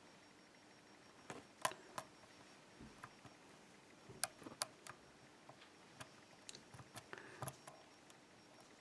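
Faint, irregular metallic clicks and ticks of a lock pick working the pin stacks of an ASSA pin-tumbler oval cylinder under light tension.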